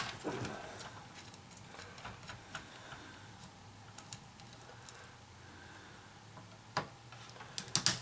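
Light clicks and taps of hands and tools working on a humidifier's plastic housing and fan motor, scattered and irregular, with a cluster of louder knocks near the end, over a faint steady low hum.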